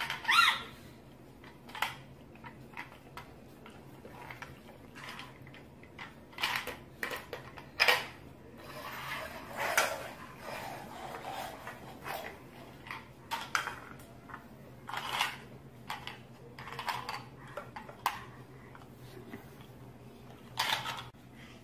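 Plastic toys knocking and clattering on a hardwood floor as a baby picks them up and pushes them around, in scattered short knocks every second or two.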